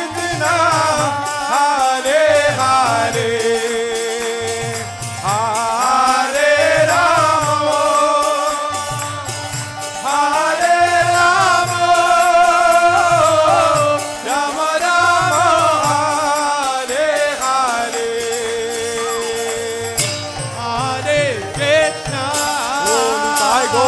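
Kirtan music: a wavering melody line with held notes, over a steady rhythm of drum and small hand cymbals.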